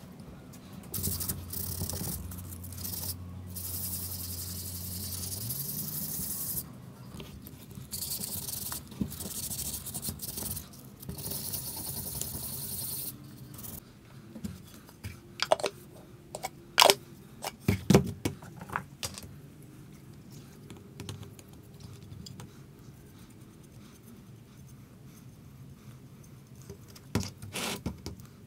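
Finish being sprayed onto wooden box parts in two long hissing bursts, the first with a low hum under it. Then a run of sharp wooden knocks as the pieces are picked up and set down, and one more knock near the end.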